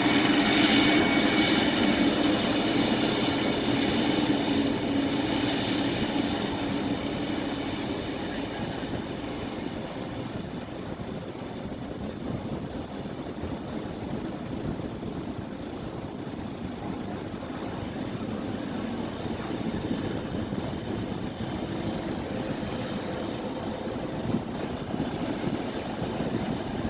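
Emirates Boeing 777's twin jet engines running at taxi power as the aircraft taxis and turns: a steady rushing whine made of several high tones. Loudest in the first few seconds, it eases off, then builds slightly again in the second half.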